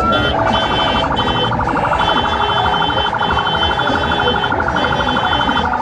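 Electronic vehicle siren: a rising wail ends just after the start and switches to a fast pulsing warble that keeps going, heard over street noise.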